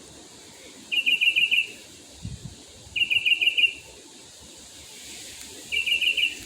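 A bird singing at night: three short phrases, each a quick run of about six identical sharp notes, about two seconds apart.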